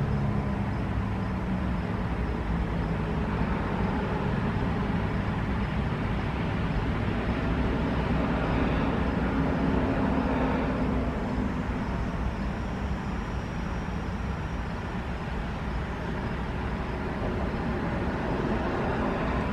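Steady road traffic noise, with a vehicle passing about halfway through. The last low tone of a Federal Signal 2001-DC siren winding down fades out in the first second.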